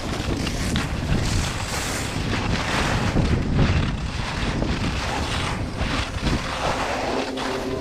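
Wind buffeting a helmet-mounted GoPro microphone at skiing speed, with the skis' edges scraping over a hard, icy groomed piste in repeated hissing rasps.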